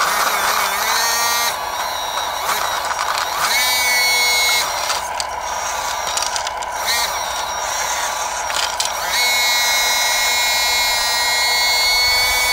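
Electric hydraulic pump and motors of a radio-controlled Bruder CAT 325D model excavator whining steadily as the boom and bucket work. Higher-pitched whines join in about four seconds in and again from about nine seconds on, as more of the hydraulics come under load.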